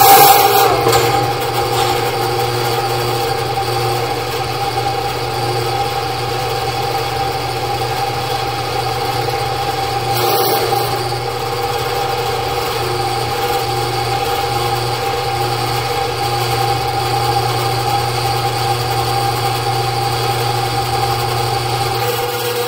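Ridgid 1500 sectional drain machine running steadily, its motor humming as the spinning sectional cable works down a clay-tile main drain to cut out heavy roots. The sound surges briefly at the very start, then holds even.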